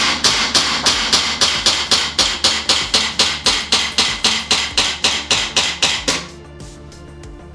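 Gas blowback airsoft gun firing a long string of rapid, evenly spaced shots, about five a second, each a sharp crack with the slide cycling; the string stops about six seconds in.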